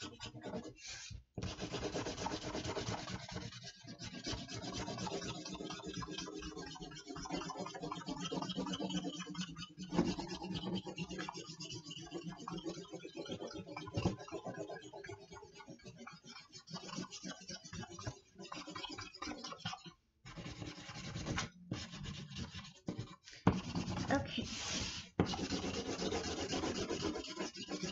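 Scented marker scrubbing back and forth on paper as an area is coloured in, a steady scratchy rubbing with a few brief pauses. Near the end the paper is shifted by hand with a short, louder rustle.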